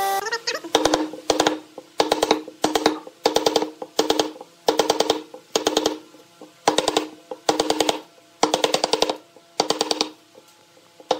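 Wooden mallet striking a chisel cutting into a pine block: quick bursts of several taps, roughly two bursts a second, each with a pitched, hollow wooden ring. The strikes pause briefly near the end.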